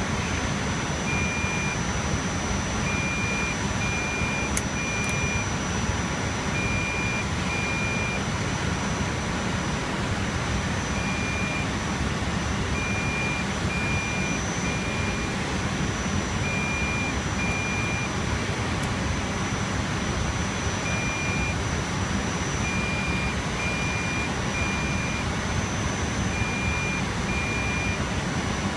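Server cooling fans running steadily with a loud, even whir and a thin high whine. A faint high beep repeats in short groups of two or three throughout.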